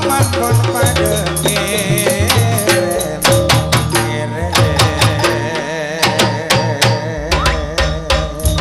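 Gamelan music: hand drums playing a quick, busy rhythm over a heavy deep bass, with a wavering melody line on top.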